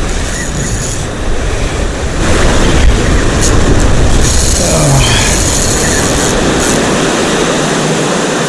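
Wind buffeting the microphone over surf washing on the shore: a steady, loud rushing with heavy low rumble that eases near the end.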